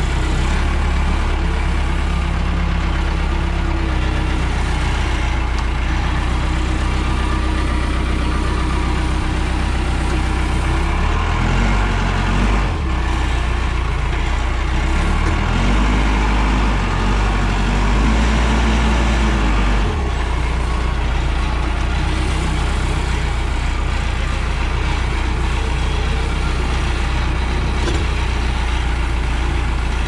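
Case 580 Super L backhoe's diesel engine running steadily as the machine is driven, with the engine note changing pitch and load for several seconds about halfway through. The drive is a test of the transmission after a service.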